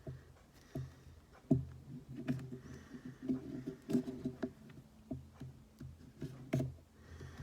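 Irregular small clicks, taps and scratching as hands and small tools handle an iPhone 6s during reassembly, with a sharper click about one and a half seconds in.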